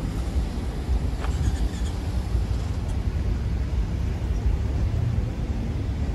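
Busy city street ambience: a steady low rumble of passing road traffic.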